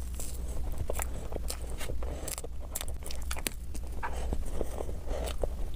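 Close-miked chewing of a mouthful of soft cream-frosted layer cake: wet mouth smacks and sharp clicks at irregular intervals, over a low steady hum.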